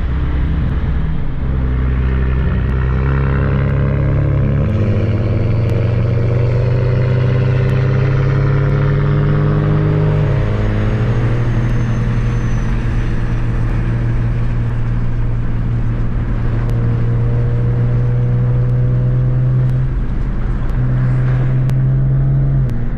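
Car engines running at low revs, heard from inside a car: a steady drone whose pitch shifts a few times as cars pull out and drive past.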